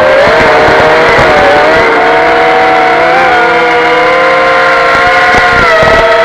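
Small FPV racing quadcopter's brushless motors whining, several tones shifting up and down in pitch as the throttle changes.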